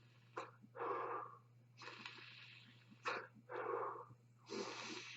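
Breathy draws on a rebuilt Uwell Caliburn vape pod alternating with exhales, several of each, each lasting about half a second to a second. The rebuilt coil and cotton are still firing.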